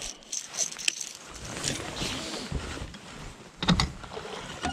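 Gear-handling noise on a bass boat: rustling and light clicks as a lipless crankbait is hooked up on the baitcasting rod, then a few knocks about three and a half seconds in as the bow trolling motor's cord is pulled.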